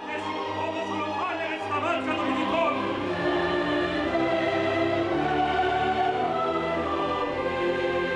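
Classical orchestral music with a choir singing sustained notes, starting right after a moment of silence.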